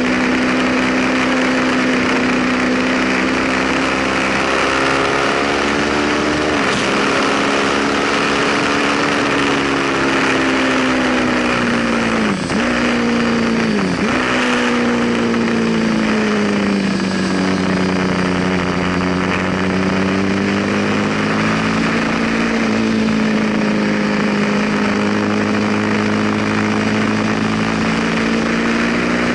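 Ducati sportbike's V-twin engine running hard on track under a steady rush of wind noise. Its pitch rises and falls through the laps, with quick sharp dips a few times, at about 7, 12 and 14 seconds in, as at gear changes.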